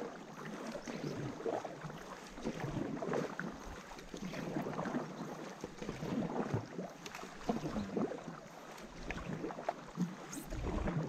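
Blackfish Andaman paddles dipping and pulling through river water beside a tandem inflatable paddleboard, with irregular splashes and drips. A low rumble of wind on the microphone comes in near the end.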